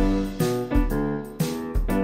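Digital accordion playing a rock rhythm pattern with the left-hand system: deep bass notes alternating with chords in a steady beat.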